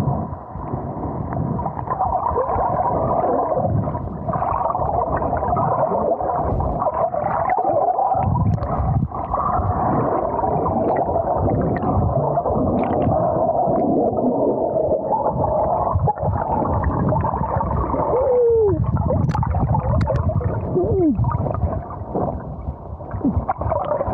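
Muffled water gurgling and sloshing close over the camera's microphone during a wild swim in a stream pool. Two short falling tones sound about three quarters of the way through.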